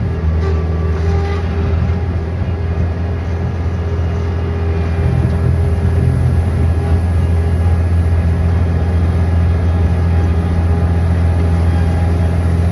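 An engine running steadily with a low, even drone, holding the same note throughout.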